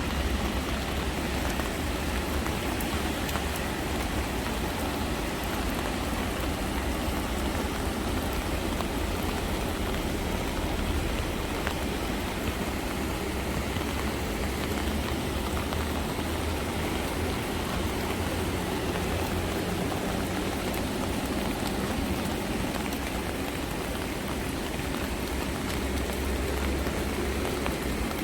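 Rain falling steadily, an even patter of drops with a continuous low rumble underneath.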